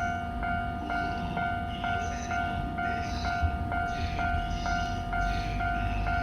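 Japanese level-crossing warning bell ringing steadily, about two strokes a second, over a low rumble.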